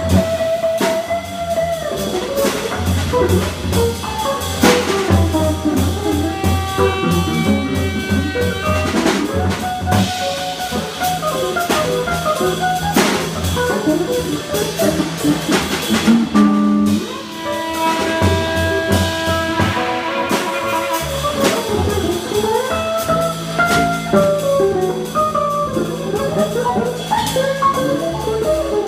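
Jazz quartet playing live: saxophone, drum kit, double bass and guitar, with busy drumming under the melodic lines.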